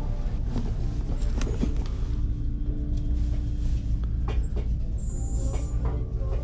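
A low steady rumble, with scattered short knocks and rubbing from shoes being handled close to the microphone. A faint held tone sounds partway through.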